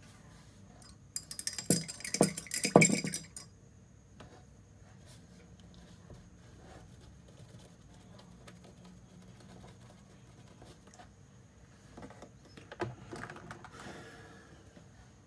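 Small paint pots and painting tools clinking and rattling as they are handled on a wooden tabletop, in two bursts: a louder one of a couple of seconds near the start and a softer one near the end.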